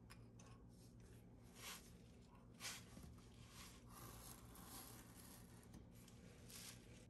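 Faint scraping and rustling as the wooden-framed cope half of a sand-casting flask is lifted off the mould and set down on a concrete floor: a few short scrapes, the sharpest about two and a half seconds in, over a low steady hum.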